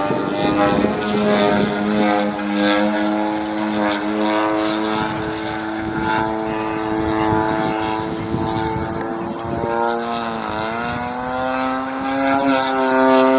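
Model airplane's DA120 twin-cylinder two-stroke gas engine and propeller droning in flight. The pitch holds fairly steady, drops sharply about ten seconds in, then rises again as the throttle or pass changes.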